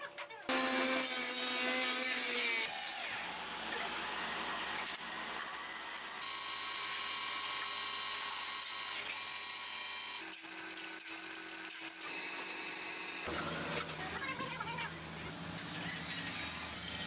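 Woodworking workshop sounds in a string of short clips: electric woodworking machines running steadily and tools working wood. The sound changes abruptly every few seconds.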